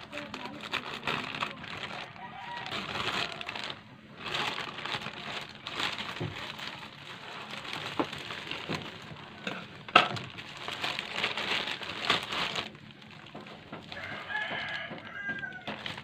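A plastic courier bag crinkling as it is handled and cut open with scissors, with one sharp click about ten seconds in. The crinkling stops a few seconds before the end, and a rooster crows in the background near the end.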